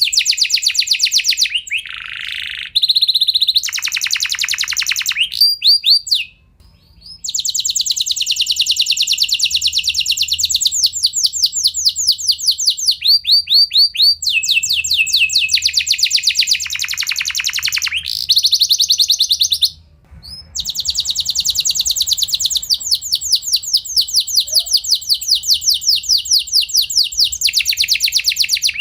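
Domestic canary singing long rolling trills of rapid repeated notes, one roll running into the next, with short breaks about six and twenty seconds in.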